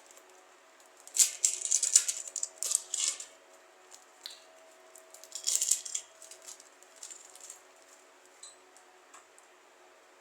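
Light rattling and rustling in short bursts as a newly bought necklace is handled and taken from its packaging, loudest about a second in and again around six seconds.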